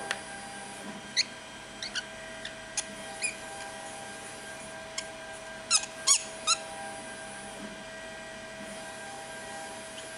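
Short squeaks from a 3D-printed plastic nut being turned by hand along a 3D-printed plastic screw, its threads made to fit within a few microns. There are about ten squeaks, the loudest in a quick run of three about six seconds in, over a steady background hum.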